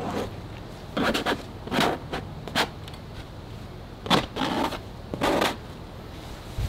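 A series of short scraping strokes in irregular groups, over a steady low rumble.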